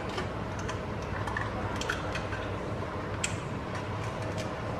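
Butter sauce simmering in a pot, with soft scattered ticks over a steady low hum. Two sharper clicks of kitchen utensils or a bottle being handled come about two and three seconds in.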